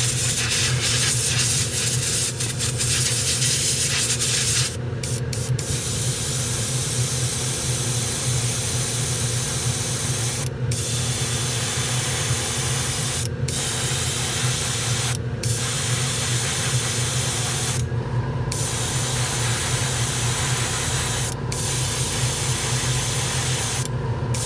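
Airbrush spraying paint in long hisses, broken by about half a dozen brief pauses where the trigger is let off, over a steady low hum.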